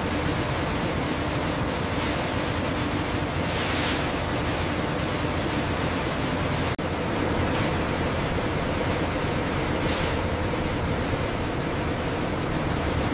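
Steady industrial machinery noise: a constant hum under a broad hiss, with a few faint swishes. The sound drops out for a moment about seven seconds in.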